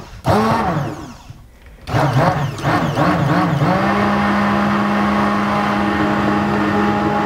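Immersion blender in a mason jar of oil-and-vinegar dressing: one short pulse, then run continuously from about two seconds in. The motor's pitch wavers at first and holds steady from about four seconds in, as the dressing emulsifies and turns creamy.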